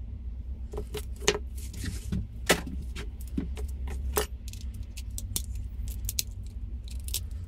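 Scattered sharp clicks and cracks of cooked brown crab shell being broken apart and handled by hand, over a steady low hum.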